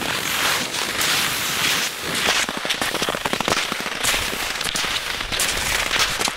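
Cross-country skis sliding and scraping over firm, crusted spring snow: a steady crackling hiss of many small clicks.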